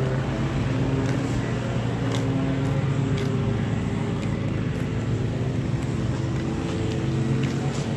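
Steady motor hum with a low drone and several held pitched tones, running evenly, with a few faint ticks.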